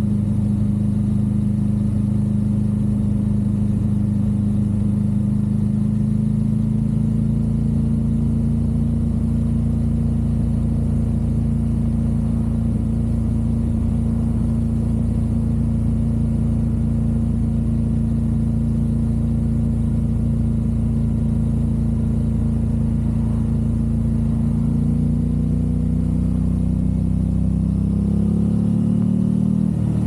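Aprilia RS660's parallel-twin engine through a low-mounted Mivv Delta Race exhaust, heard from the rider's seat while cruising at steady revs. Near the end the engine note changes, its pitch sliding as the revs shift.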